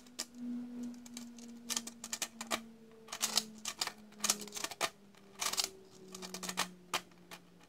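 White 3D-printed plastic folding fan blades clicking and clattering against each other as the fan is spread open and folded shut, in several quick bursts of clicks. A faint steady hum slowly drops in pitch underneath.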